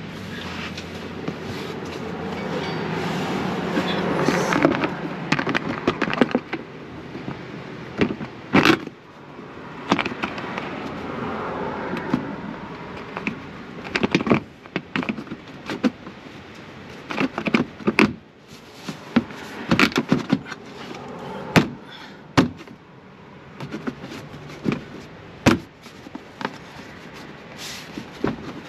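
Hard plastic underbody panel being handled and pushed into place under a car: irregular sharp clicks and knocks of plastic, with rubbing and rustling in the first few seconds.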